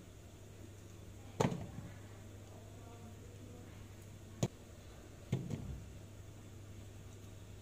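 Three sharp knocks on an empty stainless steel bowl, each ringing briefly, as slices of fish tofu are cut off with a knife and dropped into it.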